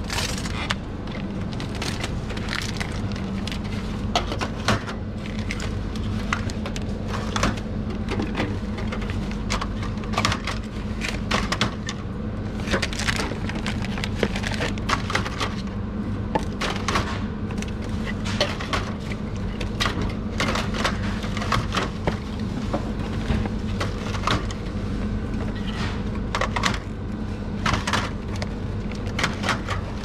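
Starbucks iced coffee drinks being stocked onto the shelves of a store drinks fridge: frequent irregular knocks and taps as containers are set down and pushed into place, over a steady low hum.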